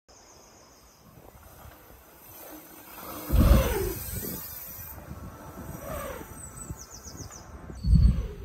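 A dirt jump bike rolling fast past the camera on packed dirt, its tyres rushing by with a falling pitch about three seconds in and again about six seconds in. Heavy low thumps come with the first pass and again near the end. A brief run of high ticking comes between them.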